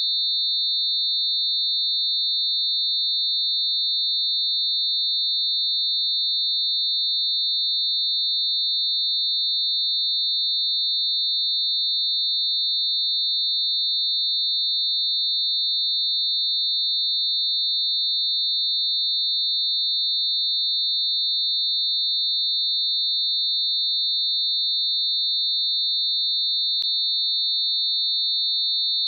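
Electronically generated mix of a few pure tones clustered around 4 kHz, heard as one steady, unchanging high-pitched whine. There is a faint click near the end.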